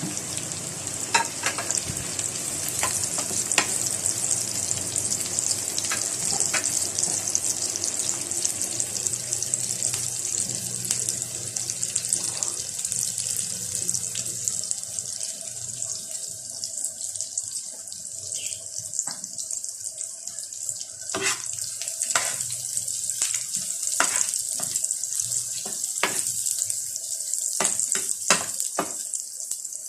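Garlic and onion sizzling in hot oil in a pan, a steady hiss, with scattered clicks of a utensil stirring against the pan, more of them in the second half.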